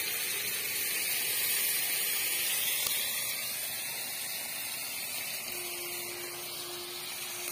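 A steady hiss, with a faint steady hum-like tone joining about five and a half seconds in.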